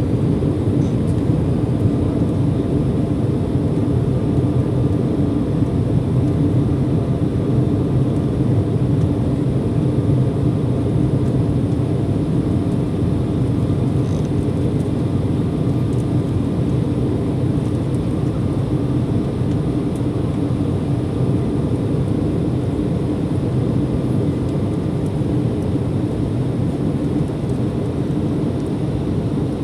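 Steady in-flight cabin noise of an Embraer ERJ-175LR: the low drone of its GE CF34 turbofan engines and rushing airflow, easing slightly near the end.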